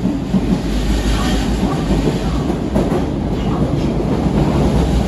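Osaka Metro 30000 series subway car running at speed through a tunnel, heard from inside the passenger car: a steady, loud rumble of wheels on rail and running gear.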